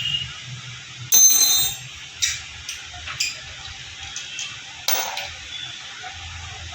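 Steel hand tools clinking and rattling against a motorcycle brake caliper as its mounting bolt is worked loose. There is one loud, ringing metallic clink about a second in, then a few sharper clicks.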